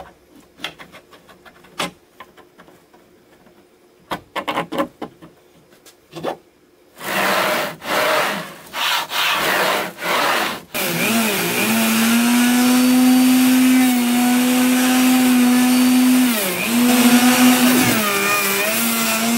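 Clicks and knocks of rail hardware and carriages being fitted, then a few short rushing strokes as the router carriage slides along the linear rails. About eleven seconds in, a compact router starts and runs steadily. Near the end its pitch dips twice as the bit bites into the wood slab it is flattening.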